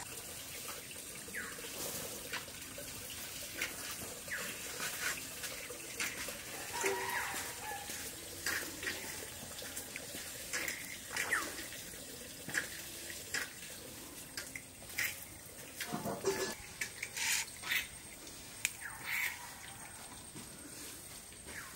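People eating rice by hand: fingers squishing and mixing moist rice on steel plates, with wet chewing and lip-smacking in short, irregular clicks.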